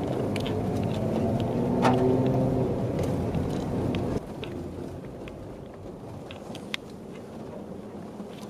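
Jeep engine running, heard from inside the cab while driving a rough, rocky trail, with a single knock about two seconds in. About four seconds in the sound drops suddenly to quieter cabin road noise with scattered small clicks and rattles.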